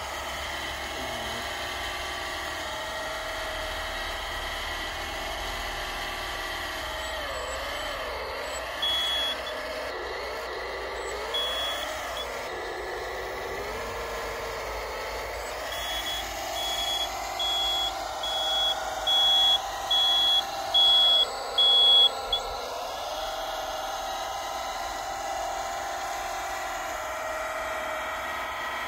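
1/14-scale RC hydraulic wheel loader whining steadily from its motors and hydraulic pump, the pitch dipping and rising again as it works. Its reversing alarm beeps once, then again, then in a run of about eight beeps; these beeps are the loudest sound.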